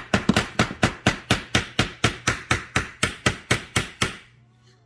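Hammer rapidly tapping the handle of a screwdriver, about five sharp knocks a second, driving its blade into the joint of a paramotor exhaust pipe to break loose a freshly siliconed section. The tapping stops about four seconds in.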